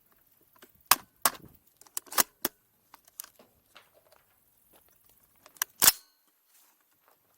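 Sharp metallic clacks and clicks of a carbine and pistol being loaded and made ready: magazines seated and actions worked. There are about seven in uneven succession, a cluster between one and two and a half seconds in and the loudest pair near six seconds in.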